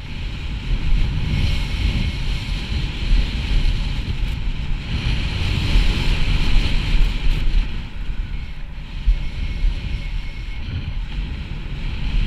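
Wind buffeting the microphone of a camera on a snowboarder riding downhill, with the hiss of the board scraping over chopped, tracked-out snow, strongest around five to seven seconds in.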